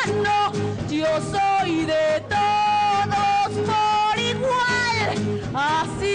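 A woman singing a dramatic show tune, holding long notes that bend at their ends, over instrumental accompaniment that sustains a steady low note.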